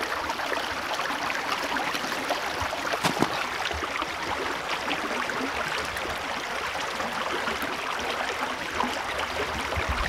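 Small creek running in open water between snow-covered ice shelves, a steady rush of water, with one short knock about three seconds in.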